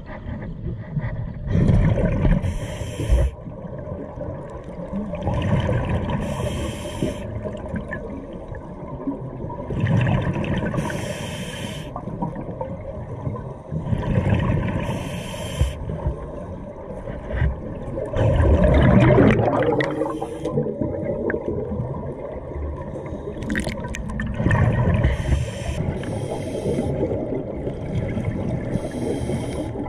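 Scuba diver breathing through a regulator underwater: a short hiss on each inhale, then a low bubbling rush of exhaust bubbles on each exhale, repeating about every four seconds.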